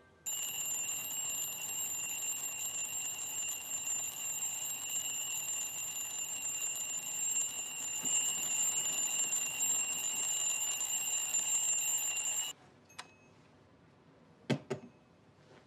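Bedside alarm clock ringing steadily for about twelve seconds, then cutting off suddenly. A couple of short light knocks follow near the end.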